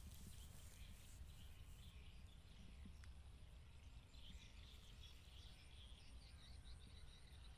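Near silence: faint outdoor ambience with a steady low rumble and a few faint bird chirps.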